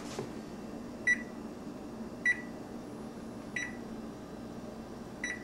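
GE Profile range's electronic oven control panel beeping once for each key press as the bake temperature of 350°F is keyed in: four short, high single-pitch beeps, a little over a second apart.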